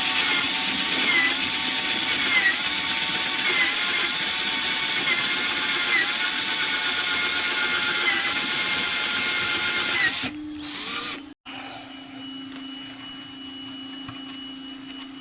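Electric drill running a step drill bit through the Gold Wing's side panel, turning steadily with a slight dip in pitch about once a second as the bit bites. It stops about ten seconds in, leaving a quieter steady low hum.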